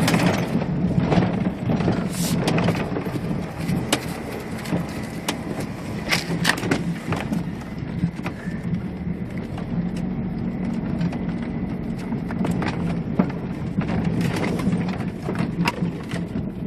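Pickup truck driving, heard from inside the cab: a steady low engine and road hum with frequent knocks and rattles.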